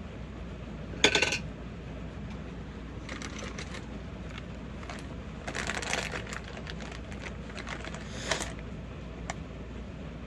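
Small hard makeup items clattering on a hard surface: a sharp clatter about a second in, then lighter bouts of rattling and clicking. Under it runs a steady hiss of heavy rain.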